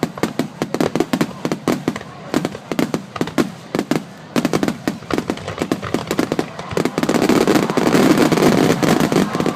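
A fireworks display firing rapid bangs, several a second, that merge into a dense, continuous din in the last few seconds.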